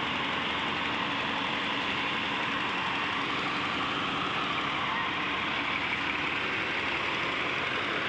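Tata Hitachi excavator's diesel engine running steadily at a constant pitch.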